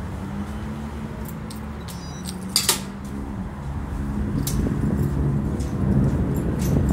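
A metal gate clanks shut once with a sharp, ringing latch click about two and a half seconds in, over a steady low hum of traffic and scattered footsteps on a tiled floor.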